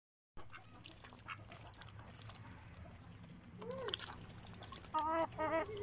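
Poultry calling around the water bowls: faint clicks, a short call a little before four seconds in, then two loud harsh calls in quick succession about five seconds in.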